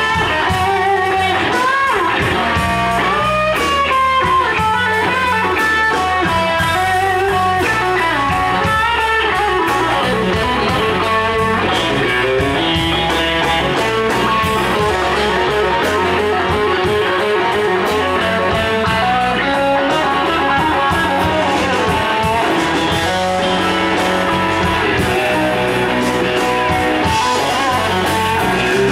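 Live blues band playing a slow blues instrumental passage: a Stratocaster-style electric guitar plays single-note lead lines with string bends over electric bass and drums.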